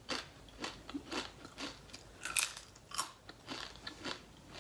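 Close-miked chewing of crunchy food, with sharp crunches about twice a second.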